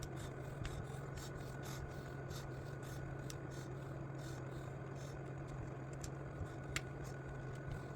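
Faint clicks and light taps of small RC truck parts and tools being handled during disassembly, with one sharper click near the end, over a steady low hum.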